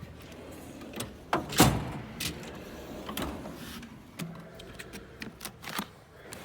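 Metal tool box drawers sliding and shutting, with a run of sharp clacks and rattles and one loudest bang about a second and a half in.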